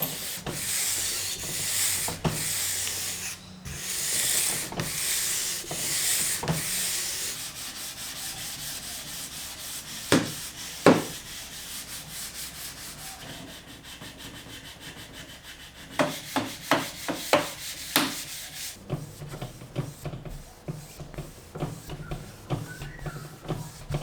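Light sanding with 400-grit sandpaper over a shellac finish on wood, in rhythmic back-and-forth hissing strokes, loudest in the first several seconds, then softer. A couple of sharp knocks come about ten seconds in, and a quick run of taps follows a few seconds later.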